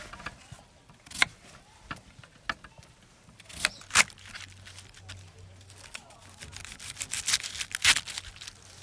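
Irregular sharp clicks, clinks and rustling from objects being handled, with a busier run of clatter near the end.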